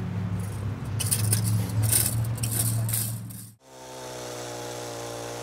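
A steady low hum with bursts of high scraping and rattling, then a sudden cut to a chainsaw idling steadily, its engine pitch sagging near the end.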